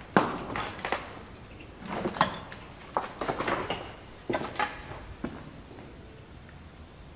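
Footsteps scuffing and crunching on a gritty, debris-strewn concrete floor, in irregular clusters that die away after about five seconds.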